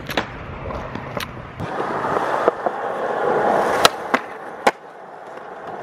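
Skateboard on concrete: the wheels roll with a rising grind from about one and a half seconds in, and the board gives sharp clacks. The loudest crack comes about four seconds in, as a trick is popped, followed by two more clacks.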